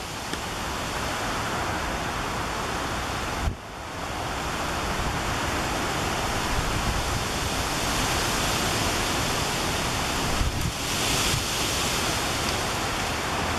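Strong gusty wind blowing across the microphone: a steady rushing rumble and hiss that drops away for a moment about three and a half seconds in.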